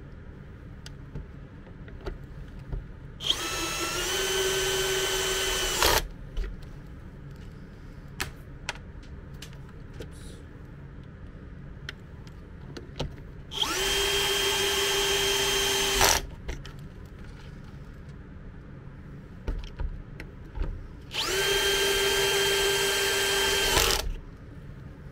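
Cordless drill-driver driving screws into a compressor's casing: three runs of about two and a half seconds each, each a steady motor whine that rises quickly to speed and stops sharply, with small handling clicks between them.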